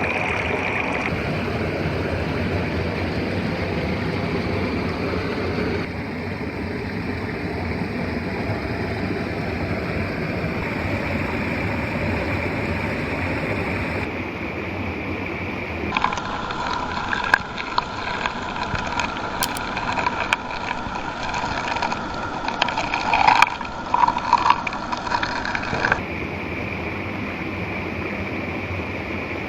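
Steady rushing water of a waterfall, in several stretches that change abruptly. In a stretch in the middle, scattered knocks and clicks and a faint whine ride over the water noise.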